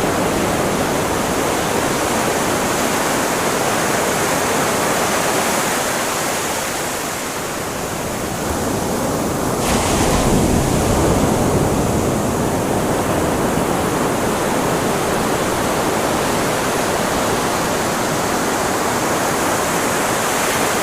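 Ocean surf washing continuously onto a beach, with a wave breaking about ten seconds in.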